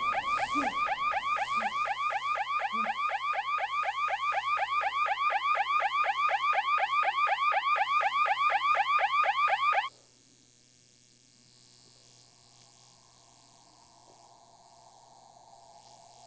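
Electronic alarm chirping: a fast, even run of rising warbled beeps, about five a second, that cuts off suddenly about ten seconds in, leaving only a faint low hum.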